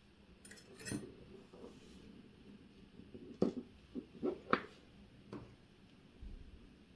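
Light clicks and clinks of small metal watch parts and watchmaker's tools, a couple near the start and a quick cluster of taps in the middle.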